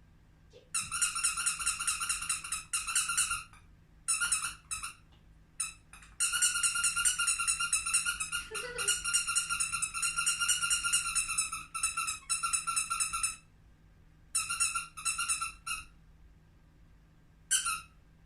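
Small dog whining, a high, steady-pitched whine in several bouts, the longest running about seven seconds without a break.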